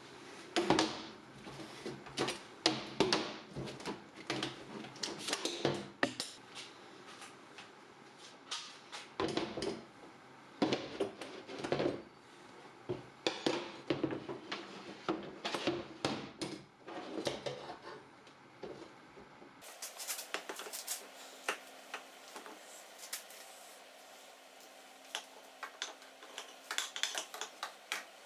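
Metal clinks and knocks of steel steering-column parts being handled and fitted together, in quick irregular clusters.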